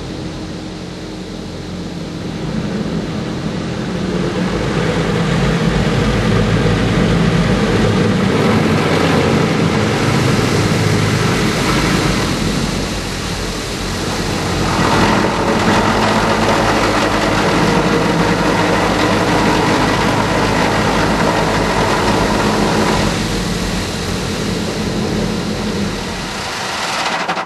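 Automatic car wash spraying water onto the car, heard from inside the cabin: a loud, steady hiss of spray over a low machine hum, swelling and easing as the wash moves. It cuts off suddenly at the end.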